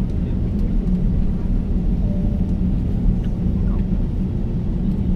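Steady low rumble inside the cabin of an Airbus A350-900 taxiing, its Rolls-Royce Trent XWB engines running at low taxi power.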